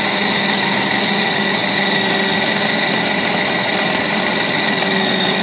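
Preethi Zodiac mixer grinder motor running at a steady pitch with its food-processor bowl, kneading chapati dough.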